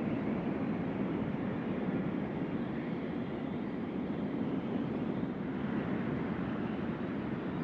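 Strong wind blowing in a steady rush, with little rise or fall.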